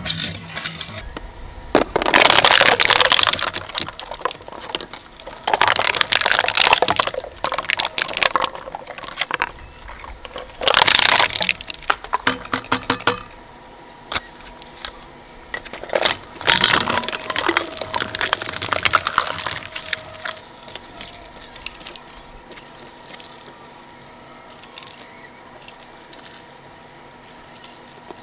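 Shredder cutters cracking and crunching through dinosaur toys in several loud bursts, over the machine's steady high whine. In the second half it runs on with nothing in its blades.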